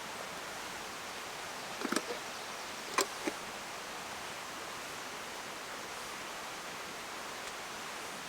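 A steady hiss, with a few light clicks or knocks about two seconds in and twice more about a second later.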